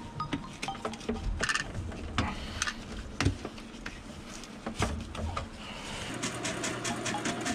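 Scattered clicks and knocks of tools and pipe fittings being handled in a cabinet under a sink, with a low steady hum that starts about six seconds in.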